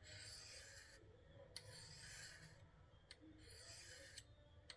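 Near silence: faint breathing with a few soft clicks.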